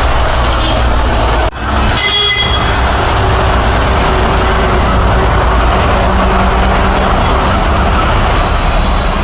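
Heavy road traffic passing close by: a steady, loud rumble of trucks and cars, with a short horn toot about two seconds in.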